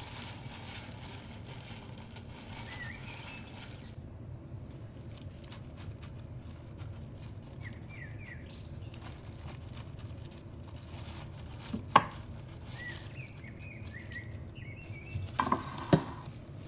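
A plastic-gloved hand squeezing and mixing crushed Oreo crumbs, then pressing them into a glass dish: soft rustling and crinkling of the glove and crumbs, strongest in the first few seconds. There is a sharp knock about twelve seconds in and a few more near the end.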